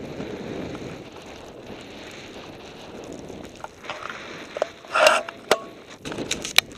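Rushing hiss of a rider carving through deep powder snow, with wind on the microphone. After about three seconds, as the rider stops, come scattered clicks, knocks and rubbing of gloves and the camera pole against a jacket, the loudest about five seconds in.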